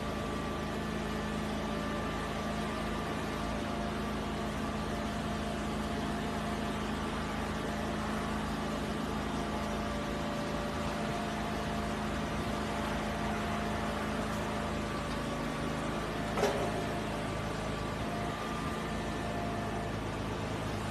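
Heavy machinery engine idling steadily, with no pile-hammer blows; a single short knock sounds about sixteen seconds in.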